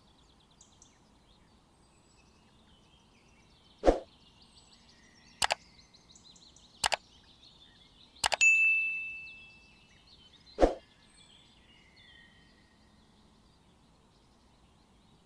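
Five separate sharp metallic knocks, most likely a utensil tapping against a frying pan while an egg cooks on low heat. The fourth knock rings on as a clear ding that fades over about a second and a half.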